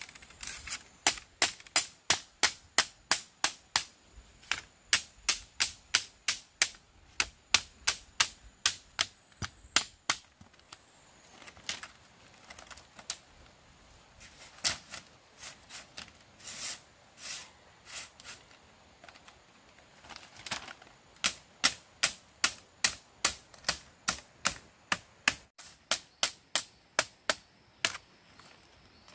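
Machete blade striking thin split-bamboo strips, sharp knocks in steady runs of about three a second, sparser and irregular through the middle.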